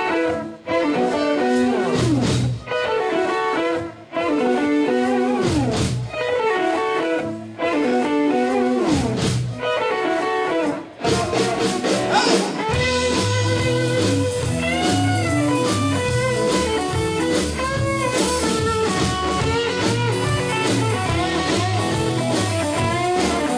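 Live rock band's instrumental intro. Electric guitars play riffs that slide down in pitch, broken by short stops. About halfway through, the bass and drums come in and the full band plays a steady groove.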